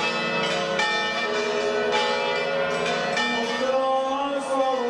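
Orthodox church bells ringing, several bells struck in an irregular peal with their tones ringing on over one another. Near the end a singing voice comes in over the bells.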